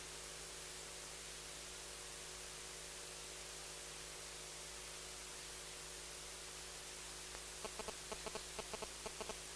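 Faint steady electrical hum and hiss from the microphone and sound system. Near the end comes a quick run of about ten short, pitched chirps.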